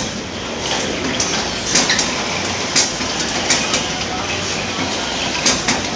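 Steel bottle filling machine running, a steady mechanical noise with irregular sharp clicks and clinks over it.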